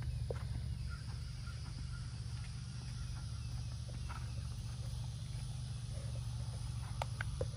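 Soft hoofbeats of a young horse trotting and cantering on grass under saddle, with a few faint ticks, over a steady low rumble and a high, even insect hiss.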